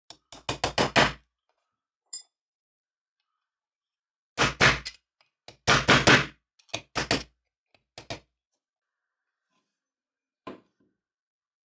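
Several short clusters of sharp clicks and knocks, then a single softer knock near the end: small steel parts of a hydraulic jack's valve handle, a threaded stem and a slotted sleeve, handled and fitted together against a steel machine vise.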